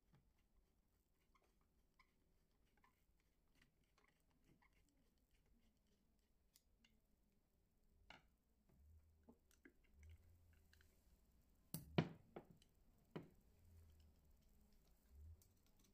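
Hands handling the hand-crank attachment on a vintage Singer sewing machine's balance wheel: faint scattered clicks of metal parts, then a few sharp knocks about twelve seconds in.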